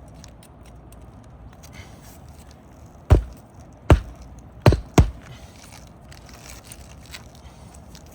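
Hammer striking roofing nails four times, the last two close together, while an asphalt shingle is fastened on the roof.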